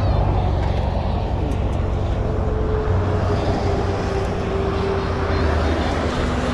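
Road traffic noise: a steady rumble of passing vehicles, with a vehicle's hum coming in about two seconds in and a lower one near the end.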